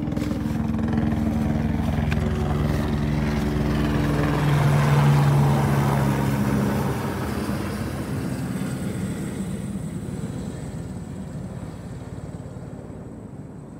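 Search-and-rescue helicopter flying past: its rotor and engine grow loudest about five seconds in, then fade steadily as it moves away.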